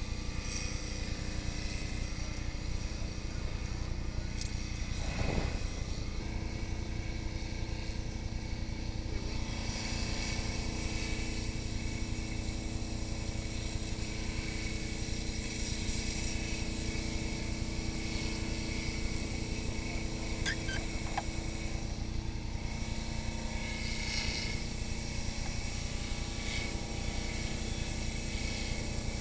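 Aerial ladder fire truck's engine running with a steady drone while the ladder pipe flows water.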